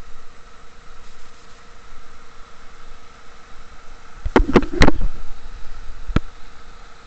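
Steady rush of a waterfall pouring into a rock pool, with a faint steady hum under it. Three quick sharp knocks just past halfway, and one more about a second later.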